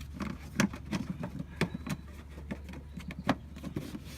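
Plastic engine-bay cover being handled and fitted back in place: scattered clicks and knocks of plastic, three of them sharper than the rest, over a steady low hum.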